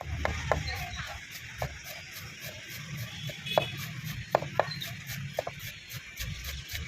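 Ambient noise at a street-food stall: a steady low hum with scattered short, sharp clicks and knocks.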